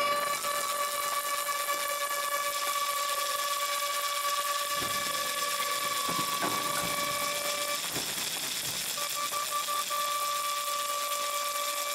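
A steady mechanical whine over a hiss, cutting out for about a second about two-thirds of the way through, then coming back.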